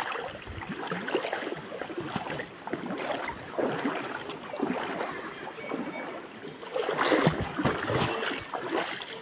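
Water splashing and sloshing irregularly as people wade through a shallow creek, with a louder burst of splashing about seven seconds in.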